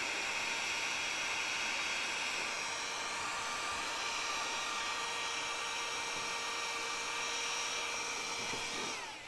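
Electric heat gun running steadily, a blowing hiss with a thin whine, warming a dented plastic bumper so it can be pushed back into shape. It falls away near the end.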